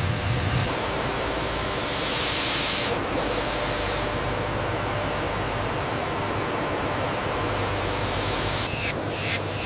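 Steady, full hiss like spraying air, shifting in tone a few times, with a quick run of sharp clicks starting near the end.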